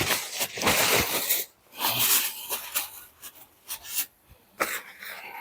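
Paper being handled: irregular rustling and tearing in short bursts, with a few sharp crinkles.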